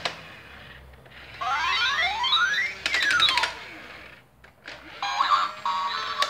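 Toy fire truck's electronic sound effects playing from its small speaker. About a second and a half in comes a cluster of quick rising electronic sweeps, then a run of rapid clicks. Near the end a different electronic tune with a held tone starts.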